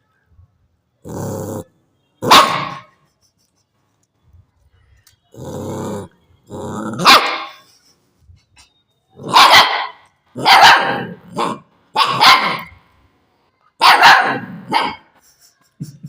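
Puppy barking repeatedly, about eight sharp barks in several groups, with two quieter growls among the first barks.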